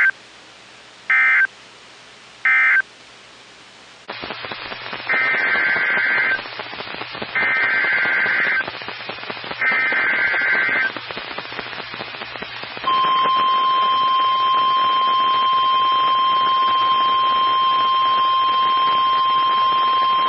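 NOAA Weather Radio emergency alert tones. Near the start come three short, shrill digital data bursts, the end-of-message code closing the previous warning. Then three longer data bursts of about a second each carry the header of a new warning, and about 13 s in the steady, piercing warning alarm tone begins and holds.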